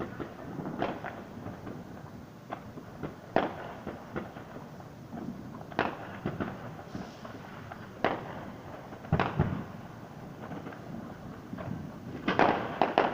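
Fireworks going off at a distance: irregular bangs and pops, several seconds apart, then a quick cluster of loud bangs near the end.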